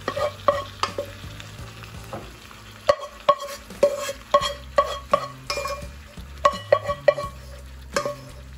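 A spoon knocking and scraping against a metal pot as steamed vegetables are emptied into a frying pan: a string of sharp, irregular clinks, each ringing briefly, with a pause between about one and three seconds in.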